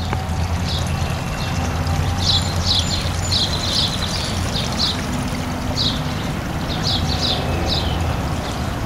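Water running steadily in a garden fountain, with small birds chirping many times in short high notes.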